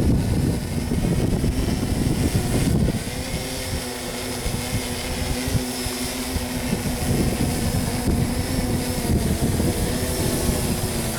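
Electric motors and propellers of a scratch-built tricopter humming steadily in flight, their pitch shifting about three seconds in as the throttle changes. Strong wind buffets the microphone throughout.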